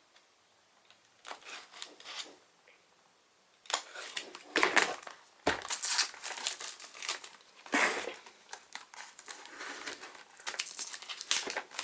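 Plastic shrink wrap being torn and crumpled off a box. A few brief crinkles come early, then after a short pause, about four seconds in, continuous crinkling and tearing with sharp crackles.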